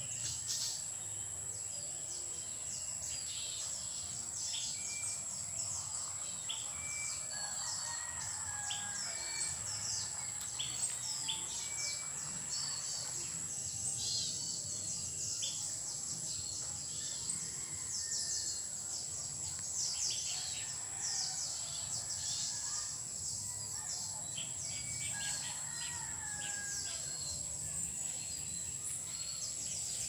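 Many birds chirping, short calls coming one after another, over a steady high-pitched drone of insects.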